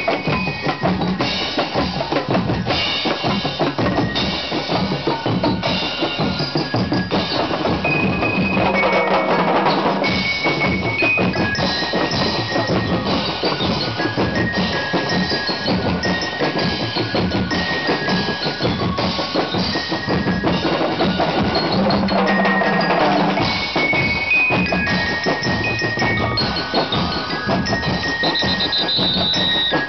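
Street percussion band playing a dense, driving drumbeat on snare and bass drums, cymbals and a gong, with metal-bar bell lyres ringing short high melodic notes over the top.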